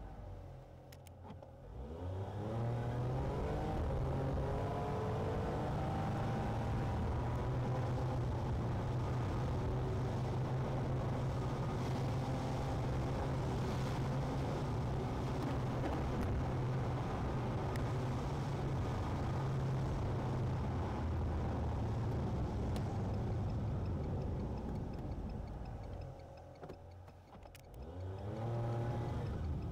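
Car engine and road noise heard from inside the cabin. After a brief quieter dip the engine pitch rises as the car accelerates about two seconds in, then holds a steady cruising drone. Near the end it drops away briefly and climbs again.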